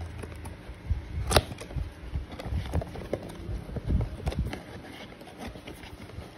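Cardboard perfume box being handled and opened by hand: scattered taps, scrapes and rustles, with one sharp click about a second and a half in.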